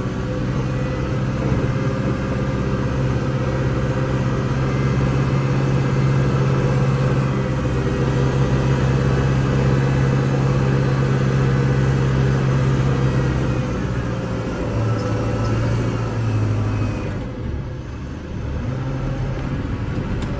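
Kubota L6060 tractor's diesel engine running steadily. Its pitch drops slightly about two-thirds of the way through, then it eases off briefly and picks up again near the end.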